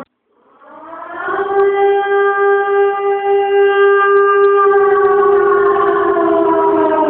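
Air-raid siren winding up from silence to a steady wail about a second and a half in. It holds, then slowly falls in pitch over the last couple of seconds.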